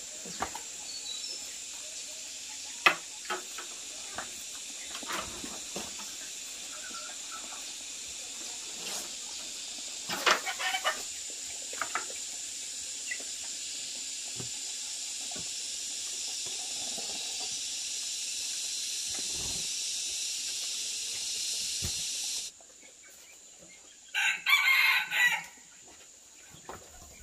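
A rooster crowing about ten seconds in and again, louder and longer, near the end. Under it runs a steady high insect drone that cuts off a few seconds before the end, with scattered sharp clicks and knocks.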